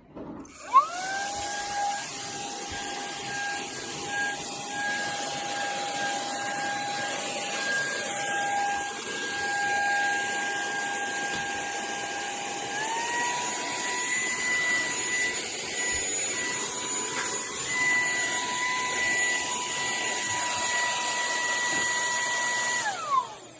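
Cordless handheld vacuum with a brushless motor, switched on with a click and spinning up to a steady whine. About halfway through, the pitch steps up to a higher speed. Near the end it is switched off and winds down.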